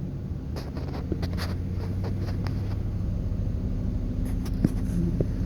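A vehicle engine running with a steady low hum, with scattered small clicks and rustles over it.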